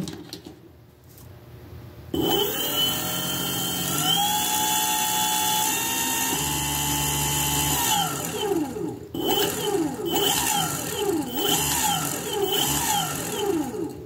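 Brushless outrunner motor driven by a hobby ESC spinning up with a whine about two seconds in, its pitch rising in steps, holding steady, then winding down; it is then revved up and let off several times in quick succession under throttle. The motor runs properly: the ESC and throttle setup works.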